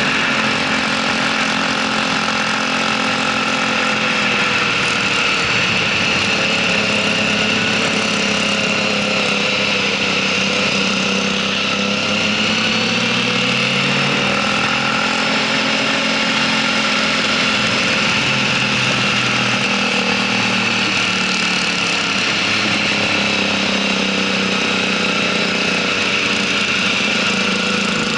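Motorcycle engine running at road speed, its pitch rising and falling with the throttle through the bends, over a steady rush of wind noise.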